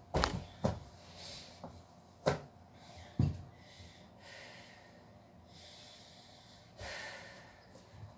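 A few dull thumps as a person lying on a yoga mat lowers their legs and sets their feet down, four in the first few seconds, then soft audible breaths.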